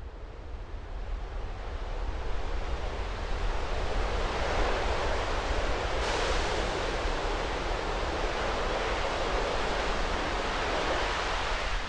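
Raptor engines of SpaceX Starship Booster 7 in a static fire, heard from a distance: a deep rumble under a rushing roar. It swells over the first few seconds, then holds steady.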